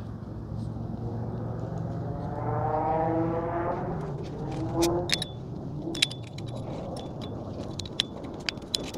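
Metal parts clinking and tapping against each other, several sharp clicks with a short ringing note, as a fork seal driver and fork tube are handled. Before that, in the first half, a passing vehicle's hum falls in pitch.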